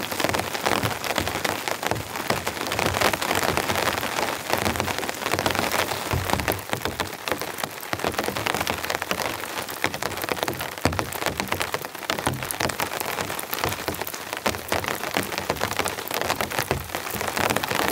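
Steady rain pattering down, with many close raindrop ticks.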